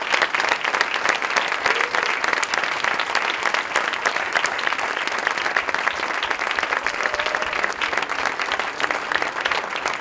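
Audience applause from a large crowd: dense, steady clapping that eases slightly near the end.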